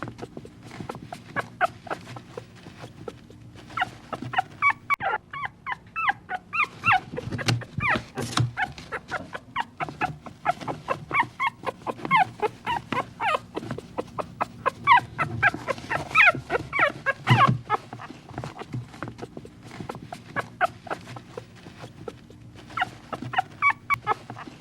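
Puppy whimpering and squeaking: many short high-pitched calls in quick runs with brief pauses.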